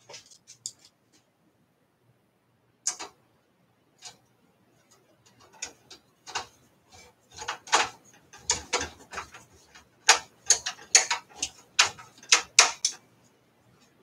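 A small flathead screwdriver turning screws into the metal bracket of a computer power supply: a run of short, irregular clicks and scrapes, sparse at first and coming quickly in the second half.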